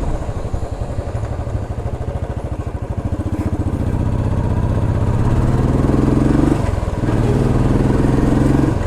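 Royal Enfield Classic 350's single-cylinder engine and exhaust thumping under way at low revs. About three seconds in it pulls up in pitch as the bike accelerates. There is a short break near seven seconds, like a gear change, then it runs steadily again.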